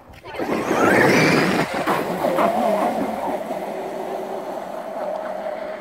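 Traxxas X-Maxx RC monster truck's electric motor whining up as it accelerates onto the lake, over the hiss of water spray as the truck skims across the surface. The whine settles into a steady tone and fades as the truck draws away.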